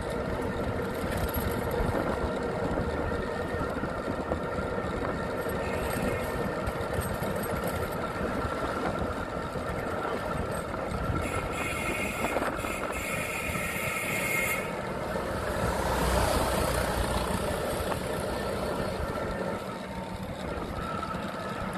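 Steady engine and road noise of a moving vehicle, heard from on board. A high-pitched whine sounds for about three seconds midway, and the rumble swells briefly a little later.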